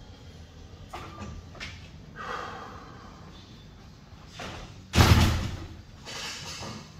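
A body shifting and rolling on a vinyl-covered exercise mat, with one heavy thump about five seconds in as the legs drop over to one side. Softer rustles and brushing sounds come before and after it.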